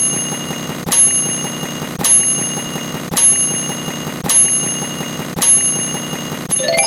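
Microwave oven chime sound effect, a bright ringing ding repeated about once a second, six times. Near the end a fast ascending xylophone run begins.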